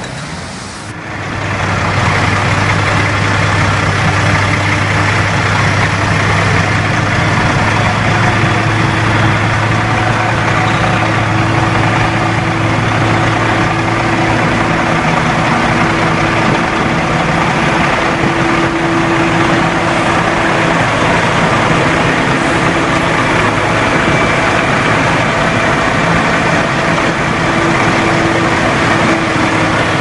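Heavy diesel engines of a Komatsu WA320 wheel loader and a tandem-axle dump truck running steadily during snow loading. The sound comes up about a second in, and a low hum drops away about halfway through.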